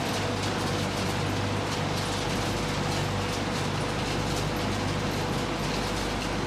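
Recycling-line machinery running steadily, with a continuous fine rattle of small pieces, a low hum and a faint steady tone.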